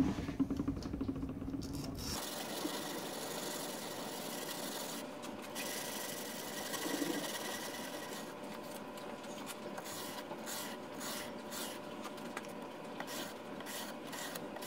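Hand sharpening: a strip of wet-or-dry sandpaper, held in the fingers, is rubbed back and forth along a steel drawknife blade. The strokes make a steady rasping scratch, more frequent in the second half. There is a thump right at the start.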